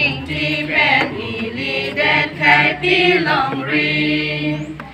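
A small group of singers, mostly women, singing a song together.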